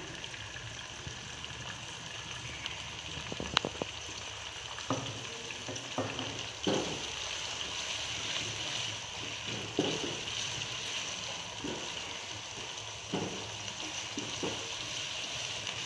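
Onion and tomato masala sizzling steadily in hot oil in a wok, with a wooden spoon now and then knocking and scraping against the pan as it is stirred.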